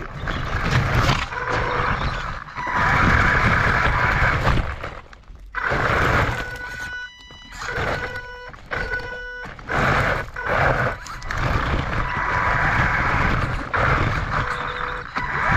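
Radio-controlled car running in repeated bursts of throttle, each a few seconds long with short dips between, with a steady whine in several of them.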